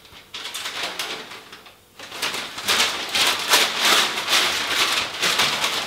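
Newspaper rustling and crumpling in a person's hands, a dense crackle that stops briefly about two seconds in and then comes back louder.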